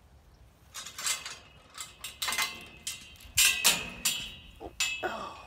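Steel pipe corral gate being worked: a run of irregular metallic clanks and rattles, with a thin ringing note under the louder ones in the second half.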